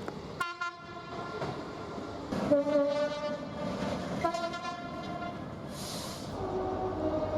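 British train horn sounding two-tone: a short blast, then a long low note stepping up to a higher note about four seconds in. A short hiss follows, and another horn note starts near the end.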